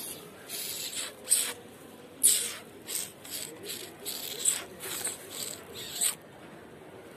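Crinkly plastic packet rustling and crackling in short, irregular shakes, about two a second, which stop about six seconds in.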